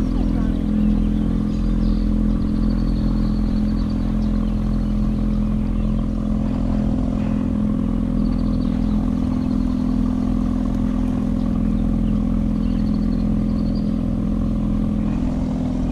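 A motor running steadily: a constant low drone that holds one pitch throughout. Faint short high chirps come and go above it.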